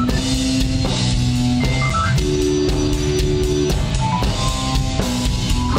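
Live blues band playing an instrumental passage: electric guitar holding notes over electric bass and a drum kit keeping a steady beat.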